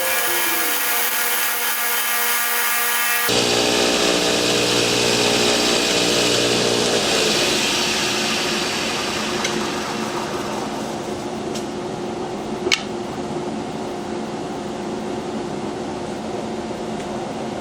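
An electric power tool running on wood: a steady motor hum with a hiss of cutting or sanding. The sound changes abruptly about three seconds in, the motor pitch drops a few seconds later, and there is a single sharp click about halfway through.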